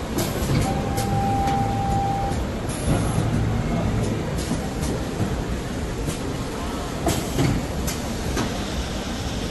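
Automatic fabric cutting and folding machine running: a steady low mechanical rumble with sharp clicks and knocks from its mechanism at uneven intervals, and a steady high tone lasting nearly two seconds shortly after the start.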